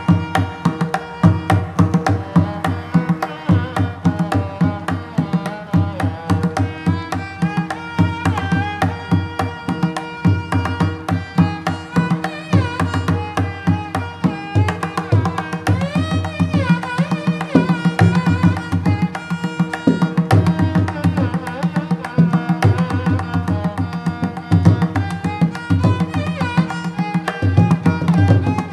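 Indian classical instrumental background music: a continuous run of fast drum strokes under a melody with gliding notes.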